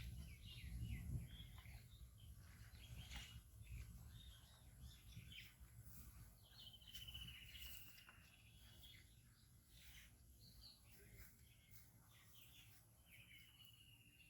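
Faint birds chirping, with short calls scattered throughout and two longer trills that slowly fall in pitch, one about halfway through and one near the end. A low rumble fades out in the first second or two.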